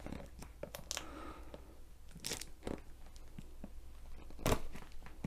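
Scissors working at plastic packing tape on a cardboard box: scattered crinkles and small clicks, the sharpest about four and a half seconds in.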